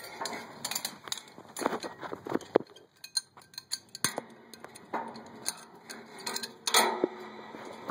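Irregular metallic clinks, knocks and scuffs with rustling, from a person moving about among metal pipes and braided stainless hoses in a cramped space.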